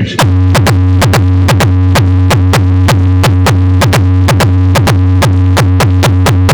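Loud electronic music blasted through a trailer-mounted car audio sound system, with a heavy sustained bass under a fast, regular beat of about five hits a second.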